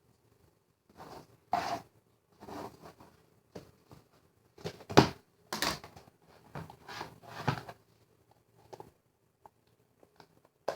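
Slime being squished and worked by hand: a string of short squishing noises over several seconds, the loudest about halfway through.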